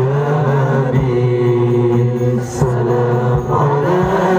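Shalawat sung into a microphone: a chanted devotional melody with long held notes over a steady low tone, with a beat striking about once a second.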